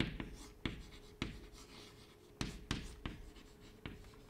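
Chalk writing on a blackboard: a string of sharp taps and short scratching strokes, uneven in spacing, over a faint steady hum.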